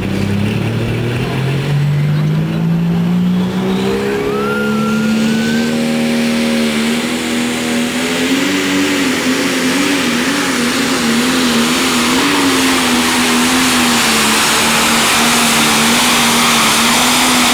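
Diesel pulling tractor (super stock / pro stock class) on a pull: the engine revs up from the line over the first few seconds, then runs flat out under the sled's load, its pitch wavering, with a rushing noise building as the pull goes on.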